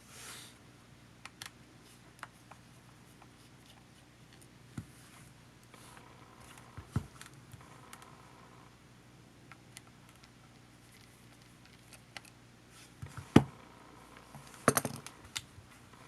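Scattered small clicks and taps of a Panasonic HA-WA10 camcorder being handled and taken apart, over a faint steady hum. There is a sharper click about thirteen seconds in and a quick run of clicks soon after.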